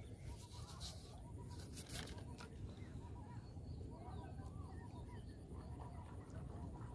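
Faint outdoor ambience: a steady low rumble with faint bird chirps scattered through, and a few soft clicks in the first couple of seconds.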